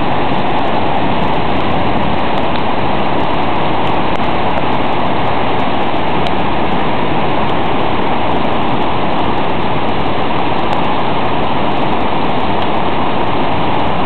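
Waterfall: a loud, steady rush of falling water that does not change.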